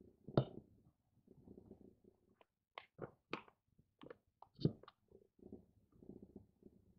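Faint handling noises: a soft knock about half a second in, then a run of small taps and clicks between about three and five seconds in, as a small glass bowl and white chocolate pieces are set down and picked up on a miniature wooden table.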